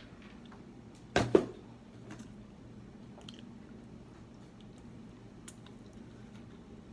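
Close chewing and soft wet mouth clicks of a person eating, with one short loud burst about a second in.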